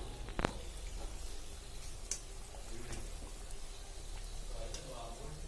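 Garjalu pastries deep-frying in hot oil in a metal kadai, a steady sizzle, with a few sharp clinks of the wire-mesh skimmer against the pan, the loudest about half a second in.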